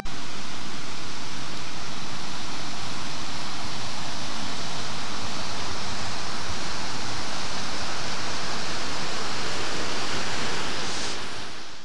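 Rushing mountain stream cascading over boulders: a loud, steady rush of water that fades out near the end.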